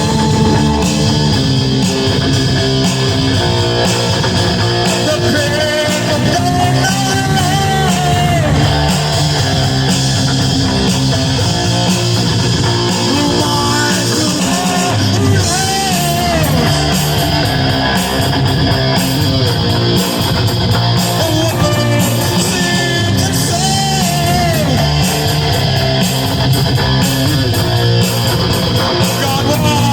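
Rock music with an electric guitar played through a Rez distortion pedal, running steadily and loudly without a break.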